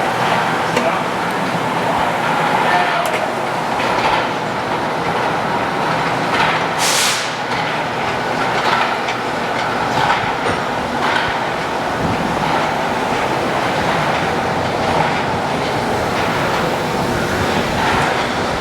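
Groen TDB/7-20 kettle's top-mounted scrape-surface agitator running on its 1/3 hp drive: a steady mechanical noise with irregular clicking and clattering, and a brief hiss about seven seconds in.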